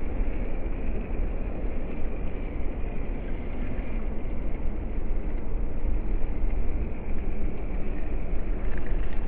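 Electric motor and plastic gearbox of a WPL C24 Toyota Hilux RC crawler running steadily as the truck climbs over a log, with a faint steady whine over a strong low rumble.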